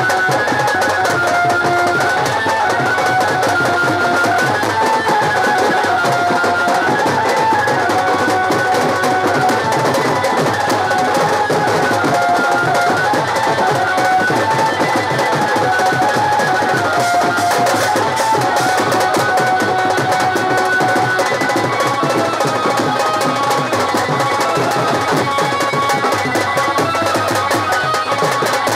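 Indian street band music: a large bass drum beaten with a stick under a stepping melody played through a horn loudspeaker, without a break.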